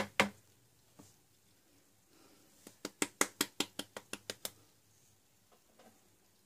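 Quick run of light taps on the bottom of an upturned white ceramic bowl, about five a second for nearly two seconds, knocking the last of the cocoa powder out into the batter. A single tap comes about a second in.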